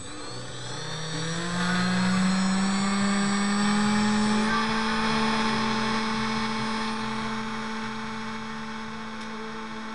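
Small brushless outrunner motor, clamped to a wooden plate, spinning up with a rising whine over about two seconds, then running at steady speed with a hum and a higher whine that ease off slightly in loudness toward the end. It is a balance test after tape was added to the rotor: close to balanced, good but not yet perfect.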